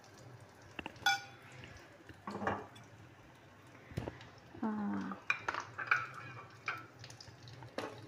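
Metal spoon clinking and scraping against a steel egg ring and a ceramic bowl as beaten egg is spooned into the ring in a frying pan, with a sharp ringing clink about a second in.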